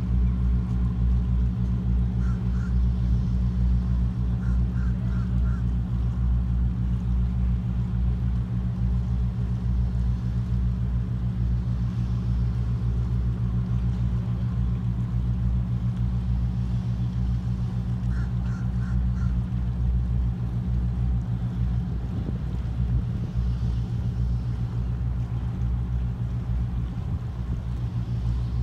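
Work boats' diesel engines giving a steady low drone across the harbor. A few quick runs of three or four short high chirps sound over it.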